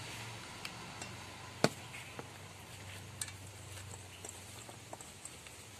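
Metal spoon clinking against a stainless steel bowl and plate as spice mix is scraped into cut fruit: a handful of separate sharp clinks, the loudest a little over a second and a half in.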